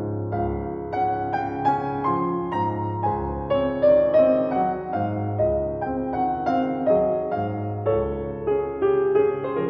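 Background piano music: a gentle melody over low bass notes that come about every second and a half.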